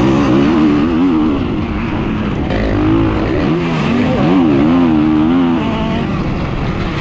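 Kawasaki KX450SR motocross bike's four-stroke engine revving as it is ridden, its pitch rising and falling again and again as the throttle is worked.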